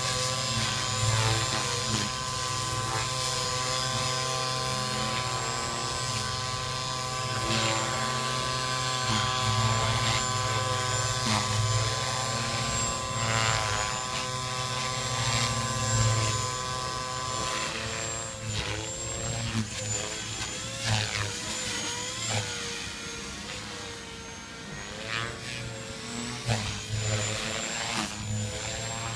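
Gaui X3 electric RC helicopter flying, its Scorpion 2520-1880Kv brushless motor and 360 mm rotor blades giving a steady whine. From about two-thirds of the way in, the pitch wavers up and down as the load and head speed change.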